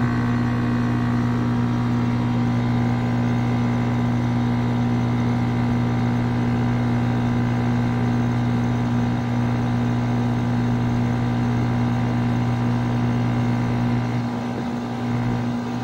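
Ameristar heat pump outdoor unit running in cooling mode: a steady compressor hum with the condenser fan, dipping slightly near the end.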